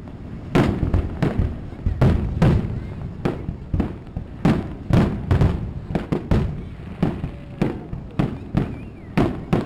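Aerial firework shells bursting over and over, an irregular barrage of booms and sharp cracks, several a second at times, with no pause.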